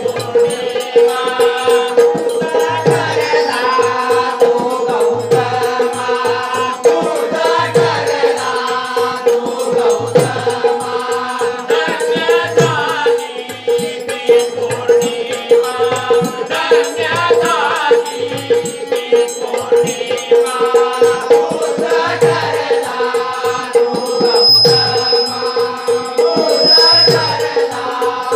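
Live Bhim geet performance: voices singing a devotional song in the jalsa style over a steady held drone note. Regular drum beats and rattling percussion keep the rhythm.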